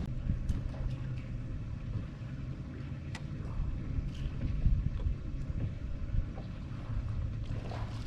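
Steady low rumble of a boat engine running on the lake, with wind buffeting the microphone.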